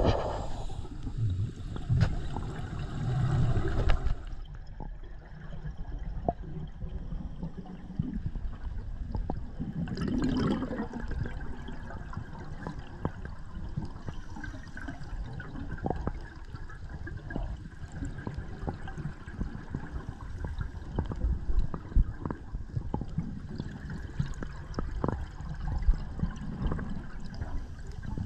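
Scuba diver's exhaled bubbles gurgling underwater in bursts, strongest at the start and about ten seconds in, over a steady low rumble with small clicks.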